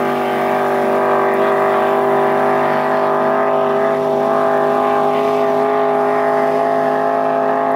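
Racing hydroplane's engine running at speed, one even, unchanging pitch throughout.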